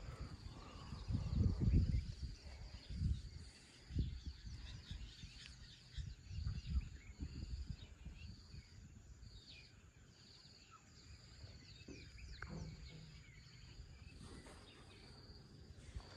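Outdoor bush ambience: insects chirping in a steady high pulse about once a second, with scattered bird chirps over it. Irregular low rumbling on the microphone in the first half.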